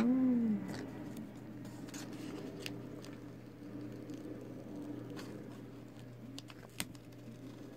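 Blue painter's tape being lifted and peeled off watercolor paper, with soft crackling and a few sharp clicks as it comes away. A brief hum rises and falls right at the start, over a low steady background hum.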